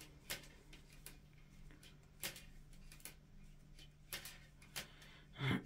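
Metal knitting needles clicking faintly and irregularly, a few light clicks a second or so apart, as purl stitches are worked in yarn.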